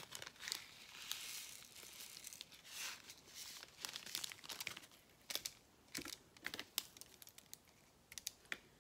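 Crinkling of a small plastic bag of resin diamond-painting drills as it is handled and emptied, the drills rattling into a plastic sorting tray. Dense crackling over the first few seconds gives way to scattered light clicks that thin out toward the end.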